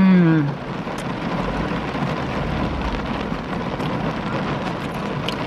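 Steady rain on a car's roof and windows, heard from inside the car as an even patter. A short hummed "mm" from the eater falls away in the first half second.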